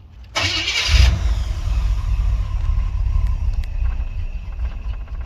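1984 Chevrolet Monte Carlo engine cold-started: the starter cranks for under a second, then the engine catches and runs for about four seconds before stalling near the end.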